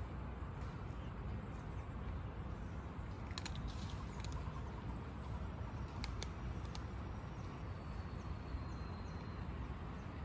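Tabby cat crunching dry kibble, heard as scattered sharp crunches, over a steady low outdoor rumble.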